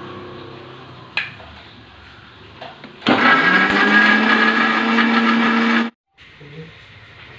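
Electric mixer grinder with a steel jar grinding garlic, green chilli and ginger to a paste. It starts sharply about three seconds in, spins up to a steady whine for about three seconds, then cuts off suddenly.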